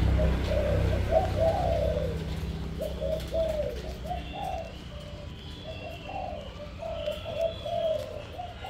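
Spotted doves cooing: a steady string of short, low, rounded coos. A low rumble fades out over the first few seconds, and faint higher chirps from other birds come in later.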